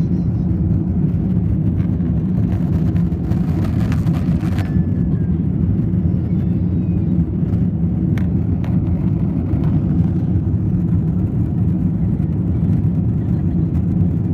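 Airliner cabin noise at the rear of the plane during takeoff: a loud, steady low rumble of jet engines and airflow, with a few light clicks or rattles in the cabin.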